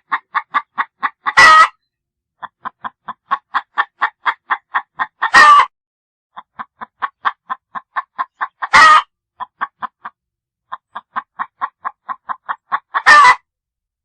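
Hen cackling: runs of short clucks, about four a second, each run ending in one loud drawn-out squawk. The phrase repeats four times, roughly every four seconds.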